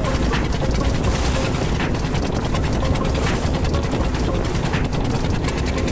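Fishing trawler's diesel engine chugging steadily under way, with water splashing and rushing along the wooden hull.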